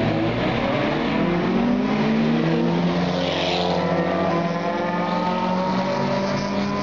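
Several race cars' engines running hard on an oval track, their pitches overlapping and sliding up and down as the cars accelerate, shift and pass. About halfway through, a brief rushing hiss comes as one car goes by close.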